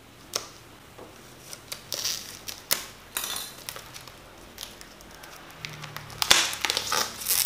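Scissors snipping through the plastic shrink-wrap of a hardcover book in a few scattered clicks, then the plastic wrap crinkling densely near the end as it is pulled loose.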